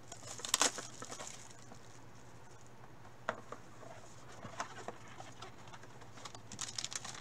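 Gloved hands opening and handling foil trading-card packs and cards: scattered crinkles and rustles, loudest about half a second in and again near the end, over a low steady hum.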